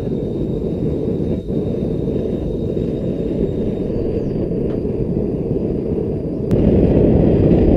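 Homemade pipe-fitting propane forge burner running at about its minimum pressure: a steady low roar of burning gas. About six and a half seconds in there is a click and the roar becomes suddenly louder.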